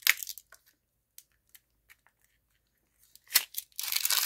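Packaging being opened by hand, crinkling and rustling: a short burst at the start, a few light ticks, then a longer, louder crinkling stretch near the end.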